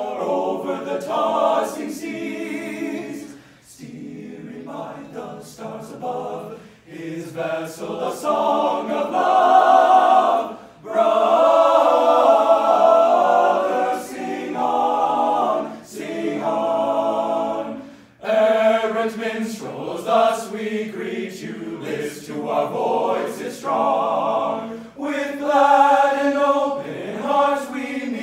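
A cappella vocal ensemble singing in close harmony, in phrases broken by short breaths; the fullest, loudest chords come roughly a third of the way through.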